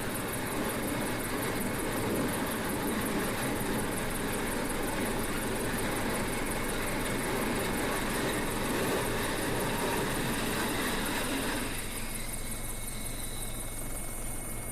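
F-35B fighter's jet engine running with a steady rushing noise, easing somewhat about 12 seconds in, then cutting off suddenly.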